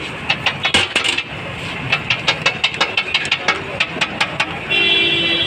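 Quick, repeated metallic clinks and taps, about three or four a second, over steady street hum. A brief steady pitched tone comes near the end.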